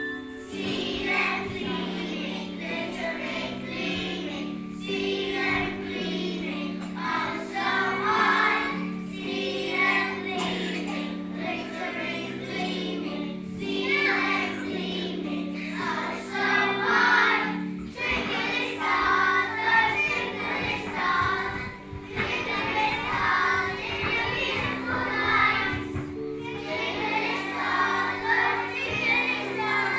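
A group of young children singing a nativity song together over an instrumental accompaniment of held notes that change about once a second.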